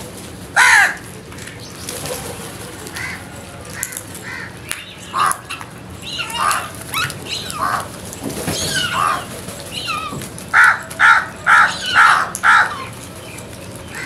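House crows cawing. One loud caw comes about half a second in, softer calls follow through the middle, and a run of five loud caws near the end comes about two a second.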